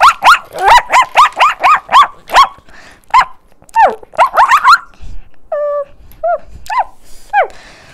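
A person's voice imitating puppy yips and barks: a quick string of short, high yelps, about three a second at first, then sparser ones with a single longer call a little past halfway.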